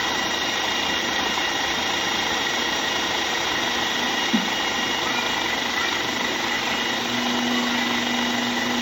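Countertop blender running steadily at its top 'ultra blend' speed while blending a smoothie. It is very loud: an even motor noise with a thin steady high whine, and no change in level.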